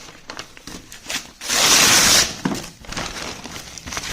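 Packaging being handled with small rustles and clicks, then one loud rasping rip about a second and a half in that lasts under a second, like a parcel being torn or unzipped open.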